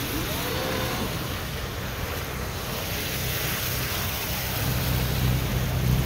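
Boat engines running with water wash as a motor cruiser passes close alongside, with wind on the microphone. The low engine drone grows louder over the last second or so as the cruiser draws level.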